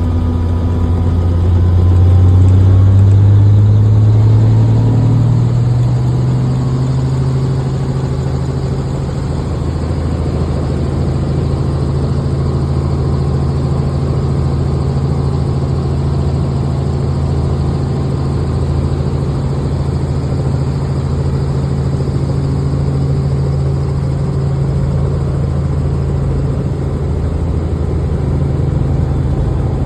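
Helicopter engine and rotor drone heard from inside the cabin: a loud, steady low hum that rises in pitch over the first few seconds, then holds steady.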